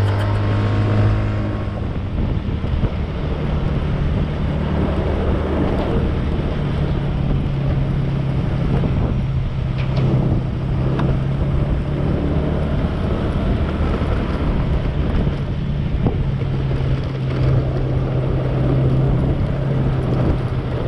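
Motorcycle engine running at cruising speed, its tone stepping up in pitch about three seconds in and then holding steady, under constant wind rush on the helmet or bike microphone.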